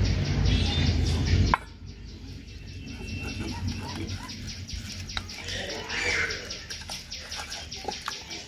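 A loud low rumble cuts off suddenly about a second and a half in. After it, hands knead wet ground-spice paste and oil in a steel bowl with soft squelches and small clicks against the metal, and birds chirp faintly.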